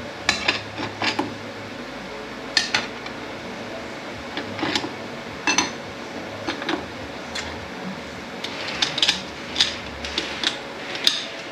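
Metal transmission parts, likely the steel and friction clutch plates from a 10R80 clutch drum, clinking and tapping together as they are handled. The clinks come at irregular intervals, several in quick succession in the first second and again near the end; the plates are glazed.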